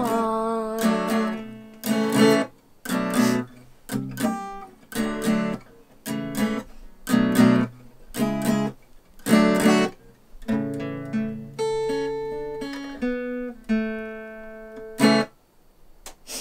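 Acoustic guitar strummed, a chord stroke about once a second, playing the song's closing bars. Near the end it slows to a few longer ringing chords, and a last short strum is cut off about a second before the end.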